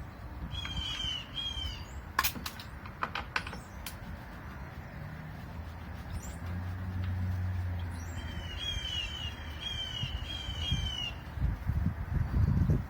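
A bird calling in two runs of quick, repeated, down-slurred chirps, one near the start and a longer one from about eight seconds in. A few sharp clicks come about two to four seconds in, and a low hum swells and fades in the middle.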